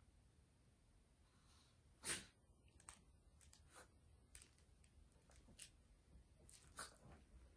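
A Shih Tzu's short, sharp snort through the nose about two seconds in, then faint sniffs at irregular intervals as she noses into a pile of plush toys.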